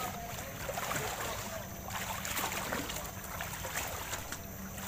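People wading through shin-deep floodwater, their boots splashing and sloshing irregularly with each step.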